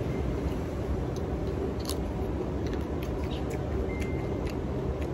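A person eating: faint, irregular clicks of chewing over a steady low rumble of background noise, with a brief high, level tone about four seconds in.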